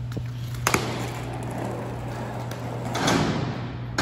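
A small plastic toy skateboard with one-piece trucks is set down hard on concrete about a second in, then its wheels roll over the floor, the rolling noise swelling near the end; a second sharp knock comes right at the end.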